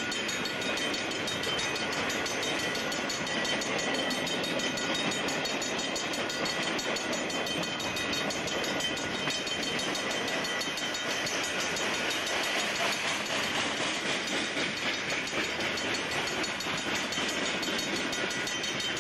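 Freight train's boxcars and tank cars rolling past close by: a steady rolling noise of steel wheels on rail.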